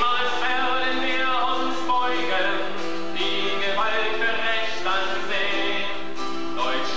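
A man singing a German song to his own acoustic guitar accompaniment, holding long notes.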